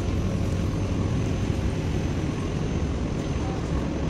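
Steady low rumbling background noise of a large warehouse store, with no distinct events.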